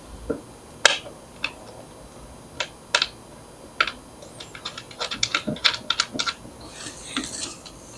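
Skateboard truck and mounting hardware being handled by hand: irregular sharp clicks and taps of small metal parts against the deck. About five seconds in comes a quick run of clicks.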